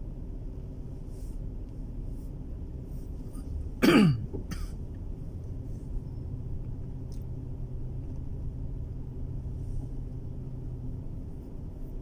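A person in the car gives one short, loud cough about four seconds in, over the steady low rumble of the car cabin while driving.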